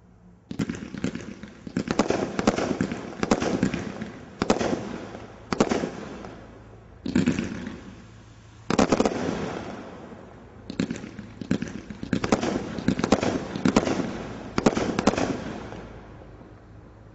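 'Ultimate Warrior' Cat 3 combination Roman candle firework firing: rapid series of sharp shots launching comets, in clusters of a second or two with short gaps between, dying down near the end.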